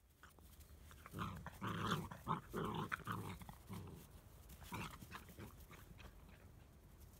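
Labrador retriever puppies vocalising as they play-fight: a run of short, low dog sounds for about three seconds starting a second in, then a few more about five seconds in.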